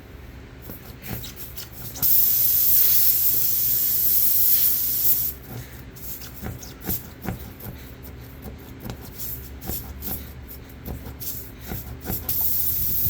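An aerosol cleaner sprayed into an ATV tire's nail hole: one loud hiss of about three seconds that starts and stops abruptly, then short scratchy rubbing strokes as the hole is worked clean, and another spray starting near the end.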